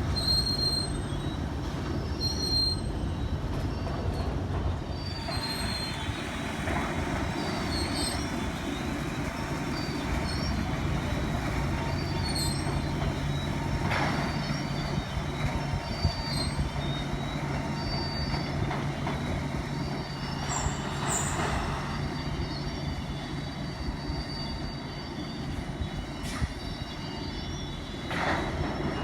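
CSX rail train unloading new rails: repeated short, high-pitched steel-on-steel screeches over a steady low rumble, with a few sharp knocks.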